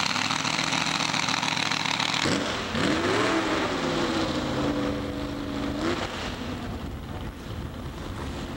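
Vehicle engines running. A steady low engine note gives way, about two seconds in, to an engine revving up and holding a steady pitch for about three seconds, then fading.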